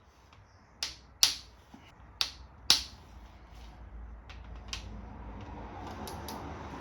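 Four sharp metallic clicks of hand tools being handled on the engine's cylinder head, then a steady low shuffling noise that grows slightly louder toward the end.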